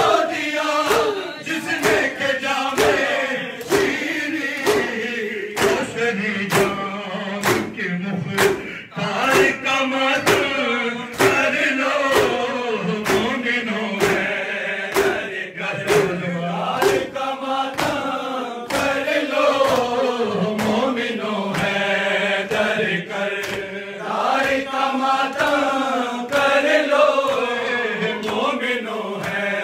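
Men chanting a noha, a lament led by a male reciter on a microphone with the group answering in chorus, over a steady beat of sharp hand slaps from matam (rhythmic chest-beating in mourning).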